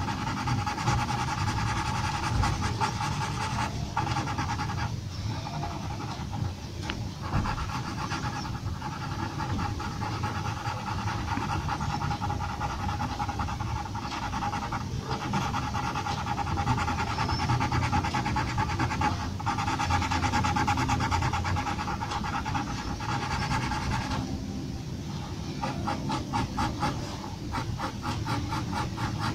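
Graphite pencil scratching on paper in short back-and-forth hatching strokes, over a steady background hum. The strokes turn into a fast, even run for the last few seconds.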